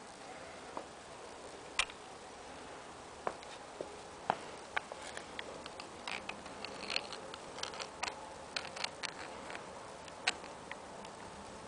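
Pencil tip tapping and scratching on drawing paper in short strokes: irregular light ticks, some in quick clusters, over a faint steady hiss.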